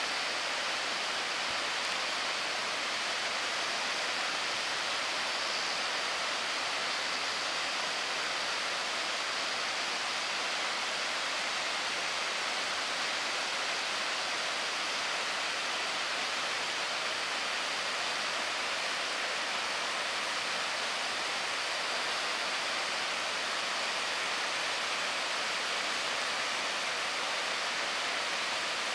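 Naramata Dam's spillway discharging floodwater after heavy rain: a steady, even rush of water pouring down the concrete chute and into the swollen river below.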